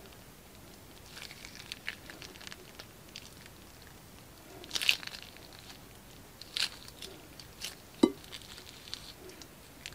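Plastic crinkling and crackling as a clear plastic spoon works through glossy slime and a plastic piping bag is squeezed, with scattered small clicks and pops. A few sharper snaps stand out: about five seconds in, twice between six and a half and eight seconds, and the loudest one at eight seconds.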